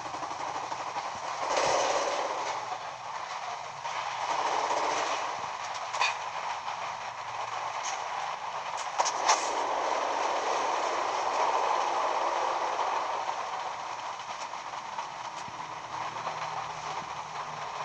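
Uchida Arctic 52-inch ceiling fan running: a steady whoosh of moving air that swells and fades, with a few sharp clicks.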